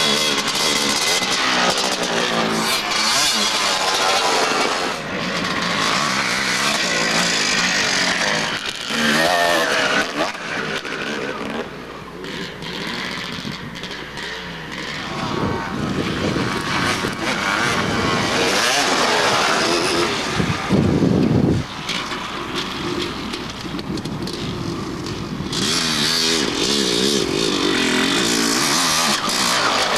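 Off-road dirt bike engines revving and passing one after another, the pitch rising and falling with the throttle, loudest about two-thirds of the way through.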